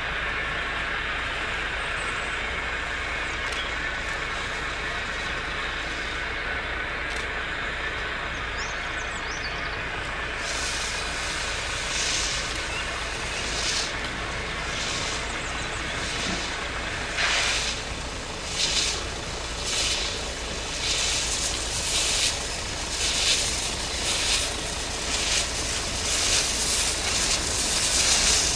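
Steam exhaust of 1919 Krauss 0-8-0 tank locomotive No. 92.2271 working a train: sharp chuffs about one a second that grow louder toward the end. They follow a steady even running noise in the first ten seconds or so.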